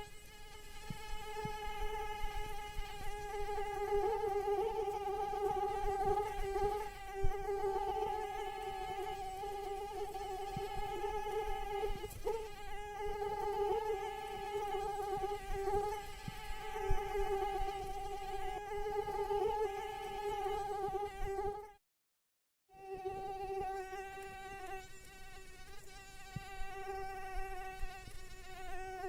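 Female mosquito's wings whining in flight: a steady, high buzzing hum that wavers slightly in pitch. It cuts out for about a second near the three-quarter mark, then resumes.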